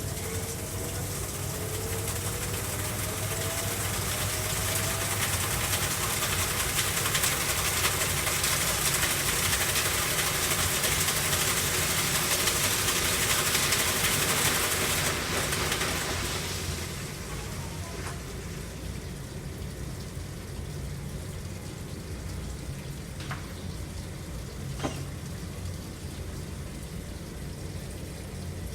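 Coin-operated washing machine (AQUA MCW-C70A) filling its drum with hot water under strong pressure: a steady rush of water that stops about two-thirds of the way through. A low machine hum runs underneath, with a faint rising whine in the first few seconds and a couple of clicks near the end.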